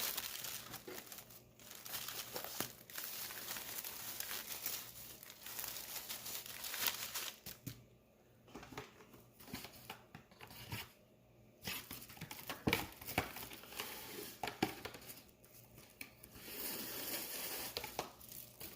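Thin plastic, plastic wrap or a plastic bread bag, crinkling and rustling as a wrapped sandwich is handled, with two brief quiet pauses midway.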